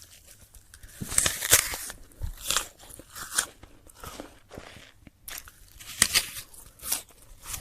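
A very crunchy apple being bitten and chewed: a run of irregular crisp crunches, loudest about a second in and again around six seconds.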